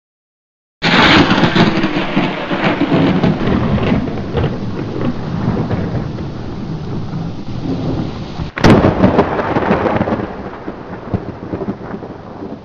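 Thunderstorm: heavy rain with thunder, starting suddenly about a second in, with a sharp thunderclap about eight and a half seconds in, then fading out near the end.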